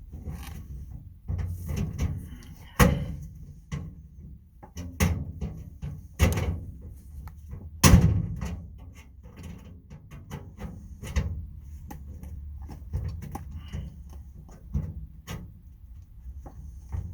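Irregular knocks and clunks of a metal tool box being worked on, its parts handled and struck, with two louder bangs, a few seconds apart.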